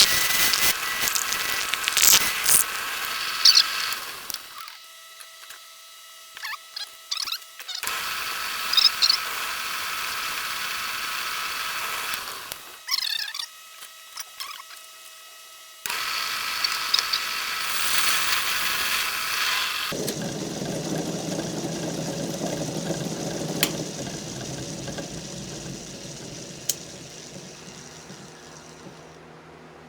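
Wood lathe spinning a small wooden workpiece, with tool or abrasive contact making a hissing noise in several separate stretches and quieter gaps between them. Near the end a lower noise fades away.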